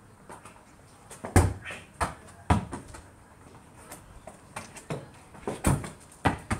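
A football being kicked and thudding against a concrete block wall, a series of sharp thuds at irregular intervals, the loudest about a second and a half in.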